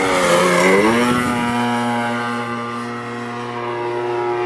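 Propeller-driven RC model aeroplane engine running. Its pitch dips and then rises about a second in, then holds steady.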